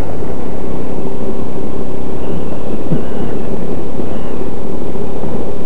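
Motor scooter under way on a street, heard from its onboard camera: a steady, loud low rumble of engine and wind noise.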